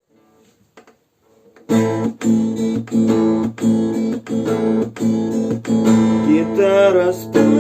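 Acoustic guitar strumming chords in a steady rhythm, about two strokes a second, starting after a short quiet moment: the song's introduction.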